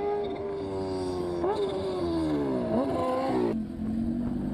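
High-revving racing engine running on the runway, its pitch falling slowly as it comes off speed, with two quick brief rises in pitch. It breaks off sharply about three and a half seconds in, replaced by a lower steady drone.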